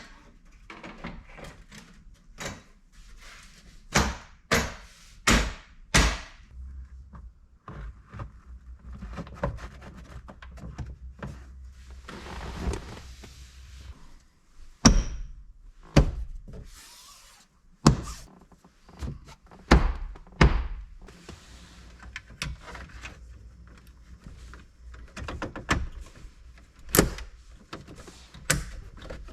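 Hard plastic knocks and thunks, a dozen or so irregular sharp hits, as a new dashboard panel is handled and pressed into its clips, with rustling handling noise in between.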